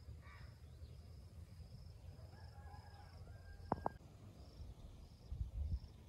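Garden ambience: a high-pitched insect chirp repeating about twice a second over a steady low rumble. Two sharp clicks come about two-thirds of the way through, and a few louder low thumps near the end.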